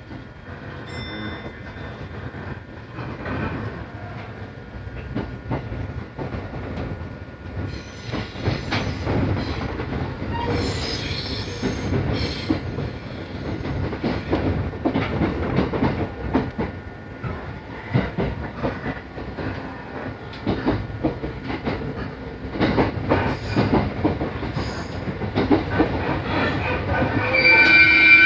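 Train running on the rails, heard from inside the passenger car: a steady rumble with wheels clacking over the rail joints, growing louder. A high ringing tone with several pitches near the end is typical of wheel squeal.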